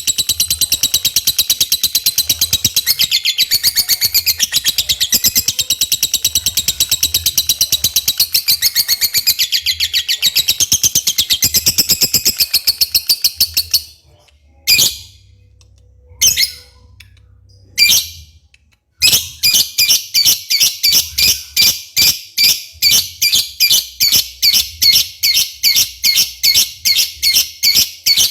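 Lovebird singing 'gacor', a long, very rapid chattering trill of high, sharp calls. About 14 seconds in it breaks off into a lull with three single calls, then resumes as a string of sharp chirps about three a second.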